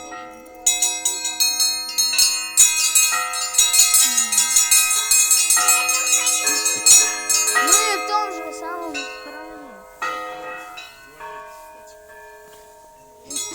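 Church bells of many pitches struck by hand in a quick, unordered jangle, a loose 'symphony of sounds' rather than a set peal. The strikes come thick for several seconds, thin out to a few single strikes, and ring away near the end.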